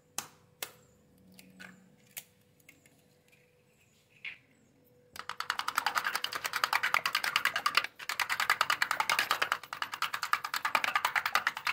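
An egg cracked against a small plastic bowl with two sharp knocks, then a metal spoon beating the egg in the plastic bowl: a rapid, steady clatter of clicks that starts about halfway in, with a brief pause.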